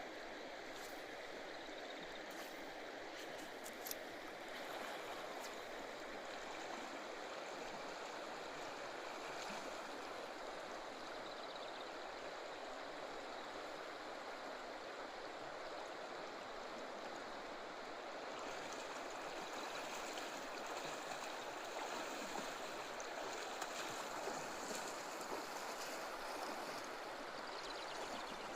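Steady rushing and gurgling of a flowing stream, with a small click about four seconds in.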